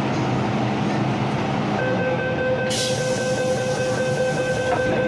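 MTR M-Train's door-closing warning sounds as a steady tone for about three seconds, starting about two seconds in, as the doors close at the station. A hiss joins it midway as the doors slide shut, and a faint click comes near the end. Under it all runs the stationary train's steady hum.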